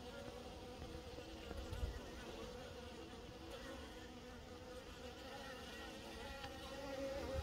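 Honeybees buzzing as they fly in and out of the hive entrance: a steady hum over a low rumble.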